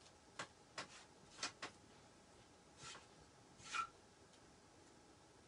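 Faint handling noises: about seven short taps and rustles as stencil transfer sheets are picked up and laid out on a box frame, the loudest about two thirds of the way through.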